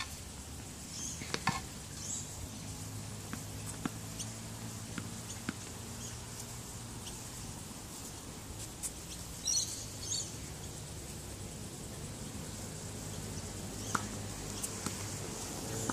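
Tennis ball being hit with a racket on an outdoor hard court: a few scattered sharp knocks, a clear one about fourteen seconds in, over a steady low outdoor background.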